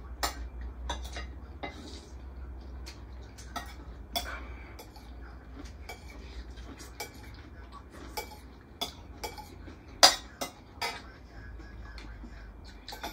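Metal forks and spoons clinking and scraping against plates as two people eat, in irregular sharp clicks with one loud clink about ten seconds in.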